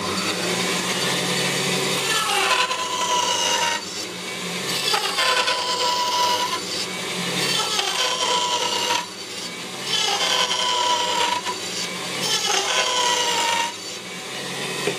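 Bandsaw switching on and running, making five short cuts into a wooden block. Each cut adds a steady high whine over the motor.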